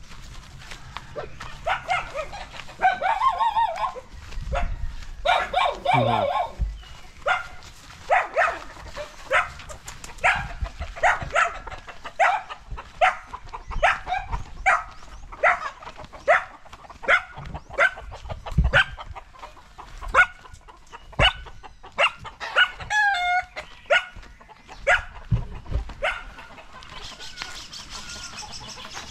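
Dog barking over and over, about one to two barks a second for much of the stretch, with chickens clucking around it.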